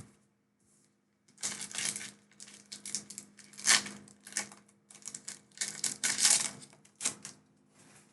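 Crinkling and rustling of a foil booster pack and its trading cards being handled and opened, a quick irregular run of crisp crackles and clicks that starts about a second and a half in.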